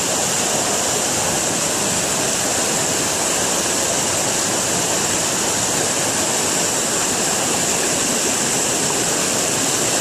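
Fast mountain river rushing over rocks in white-water rapids, a steady, unbroken sound of flowing water.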